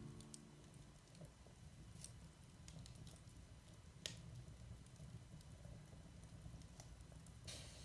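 Wood embers in a fireplace crackling faintly, with a few sharp pops, the loudest about four seconds in, and a short burst of hiss near the end.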